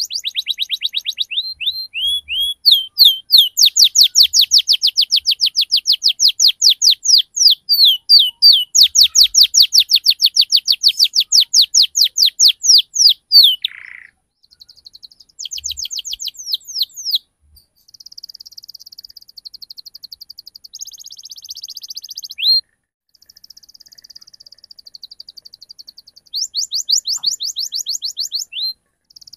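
Domestic canary singing a long song of rapid trills: loud runs of quick downward-sweeping notes, several a second, then a quieter fast rolling trill in the middle, and another short run of sweeping notes near the end.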